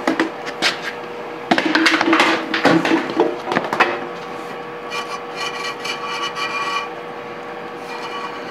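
Wires being fed through a sheet-metal electrical junction box, knocking and scraping against the metal for the first few seconds, then rubbing with a lighter rattle.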